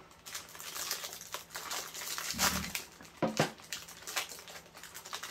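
Plastic snack packaging crinkling and rustling in someone's hands as a pack of Jaffa cakes is opened, with a dull bump about two and a half seconds in.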